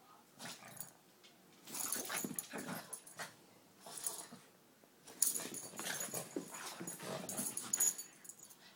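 A Boston Terrier/Pug mix and a long-haired Chihuahua play-fighting, their growly vocal noises and scuffling coming in rough bouts, the longest about three seconds.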